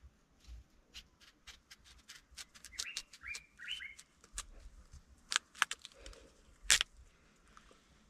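Knife chopping hard raw sweet potato into small pieces: irregular sharp clicks and taps of the blade, the loudest a little over six seconds in. A bird chirps a few times about three seconds in.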